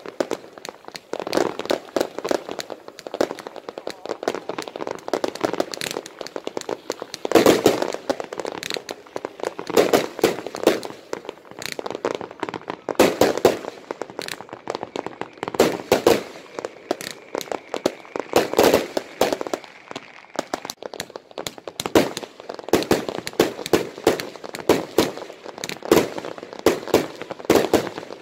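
Fireworks and firecrackers going off: a dense, irregular run of crackling pops and bangs, with louder reports every second or so.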